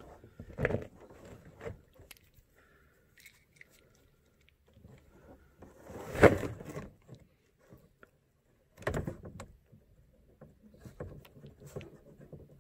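Handling noise from a SharkBite push-to-connect fitting and PEX plastic pipe held in the hands: irregular rubbing, rustling and light knocks. The loudest knock comes about six seconds in and another about nine seconds in.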